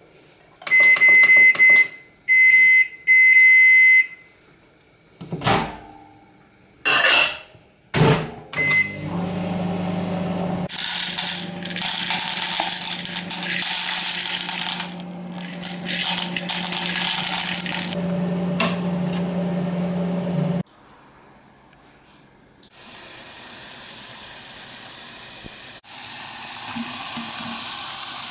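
Microwave oven beeping three times, loud and high-pitched, then a few sharp clicks. After that comes a steady hum with hiss for about ten seconds that cuts off suddenly, and a softer hiss near the end.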